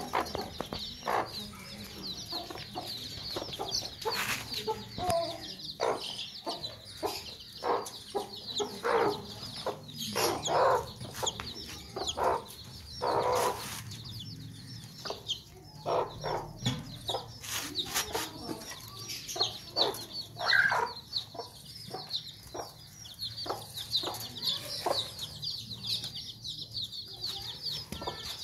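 A mother hen gives repeated short clucks, the loud, agitated clucking of a hen guarding her chicks. Behind it her brood of chicks peep high and fast all the way through.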